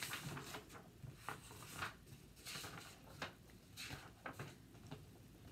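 Faint, irregular rustling and soft flicks of a paper picture book's pages as it is opened and its pages are turned.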